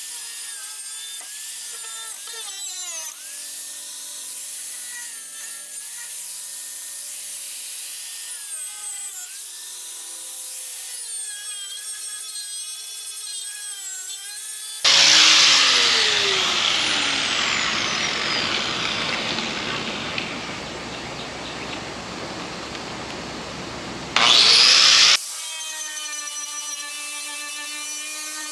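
Handheld power tool working rust off sheet metal, its whine rising and falling as it loads. About halfway in it turns much louder and harsher, the pitch sagging as it bites into the metal, then eases. A short loud burst comes near the end before the lighter whine returns.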